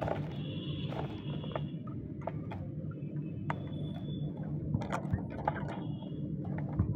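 Kadaknath chickens pecking grain from a plastic feeder: irregular sharp taps of beaks on the feeder, a few quick ones in a row, over a steady low mechanical hum.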